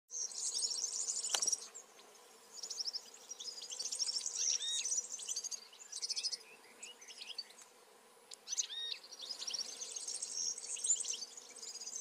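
Small songbirds singing in short phrases with brief gaps: rapid, high-pitched jingling trills and twitters, with a few gliding call notes. A faint steady hum lies beneath.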